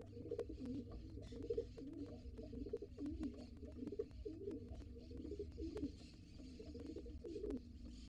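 Pigeon cooing in repeated low, wavering phrases, stopping near the end, with scattered sharp clicks.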